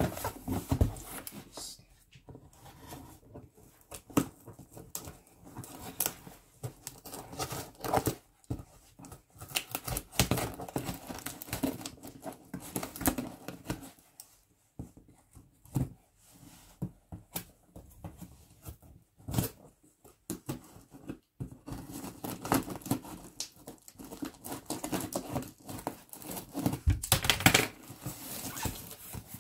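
Scissors cutting and scraping along packing tape on a cardboard box, with the tape being peeled and torn off and the cardboard rustling and knocking, in short irregular bursts. A louder stretch of tape ripping comes near the end.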